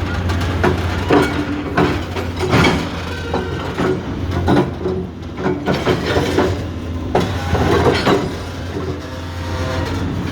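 Hydraulic jack hammer breaking rock: irregular sharp knocks over a steady low engine hum.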